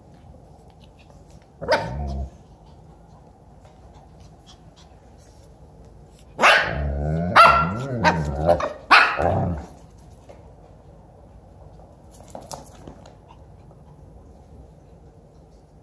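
Dogs play-fighting: one short bark about two seconds in, then a run of about five barks and growls in the middle.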